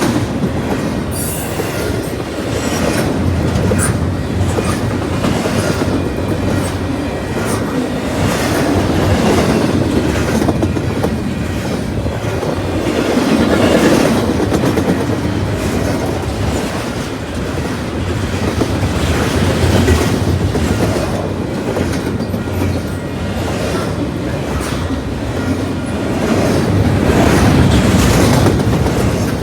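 A CPKC freight train's cars rolling past close by, a continuous rumble with the wheels clicking over the rail joints, swelling and easing as the cars go by.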